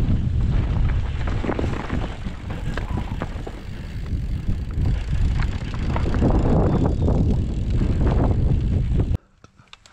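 Wind buffeting the microphone as a mountain bike descends fast, its tyres and frame rattling and clattering over a rough, stony grass trail. The sound cuts off suddenly near the end.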